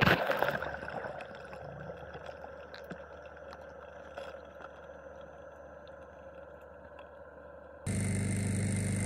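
Underwater drone's thrusters whining faintly and steadily after a short loud burst at the start, with a few light ticks. Just before the end the sound switches abruptly to a steady low hum of an idling vehicle engine.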